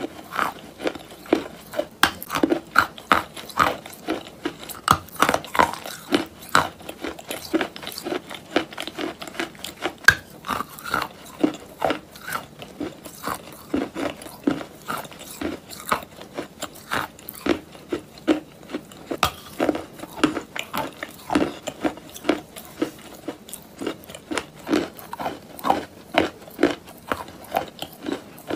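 Close-miked bites and chewing of a dry, chalky white block: a steady run of short crisp crunches, about one or two a second.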